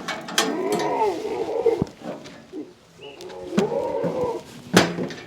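Beetal goats bleating: two long, wavering bleats, one near the start and one in the second half. Sharp knocks come in between, the loudest one near the end.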